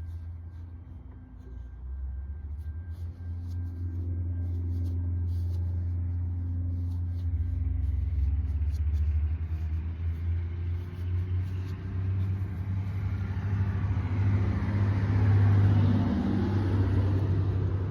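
Low rumble of a motor vehicle, with a steady hum underneath and a broader noise that builds to a peak near the end before easing off a little. Faint clicks in the first few seconds.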